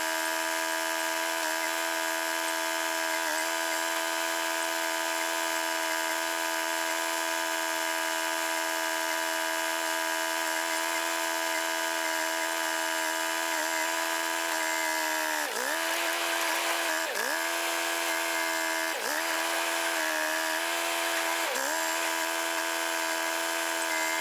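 Tractor loader's engine running steadily at high revs, with its pitch sagging briefly four times in the second half as the engine takes load.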